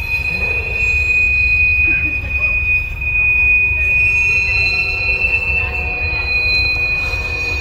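Empty phosphate hopper cars rolling past, their steel wheels giving a steady high-pitched squeal against the rails over a constant low rumble of wheels on track.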